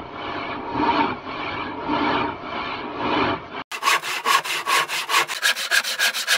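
Hand saw sawing wood in a rhythmic back-and-forth rasp, at first about two strokes a second. A little after halfway it breaks off and comes back sped up, as a faster, brighter and higher-pitched run of strokes.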